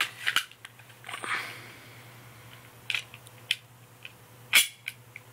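Gas airsoft pistol and magazine being handled: a string of separate mechanical clicks and knocks, the loudest near the end.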